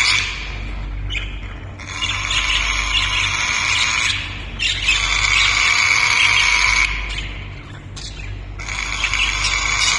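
Parrot squawking in long, high calls of about two seconds each, three of them, with short breaks between.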